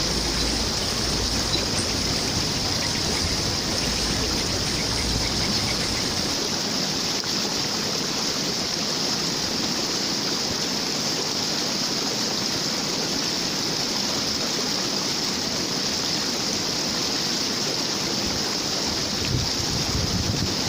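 Steady rushing and babbling of flowing water from a stream or small waterfall. The deep rumble underneath thins out about six seconds in.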